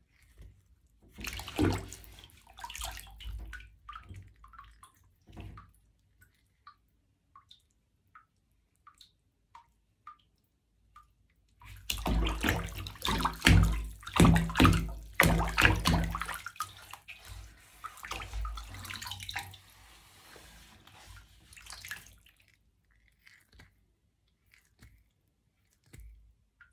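Water splashing in a bathtub around bare feet. A short spell of splashing comes first, then a few scattered drips, then a longer stretch of heavy, dense splashing through the middle that dies away near the end.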